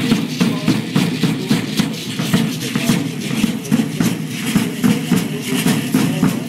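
Matachines dance percussion: a large drum keeping a quick, steady beat of about four strokes a second, mixed with the dancers' rattles and stepping.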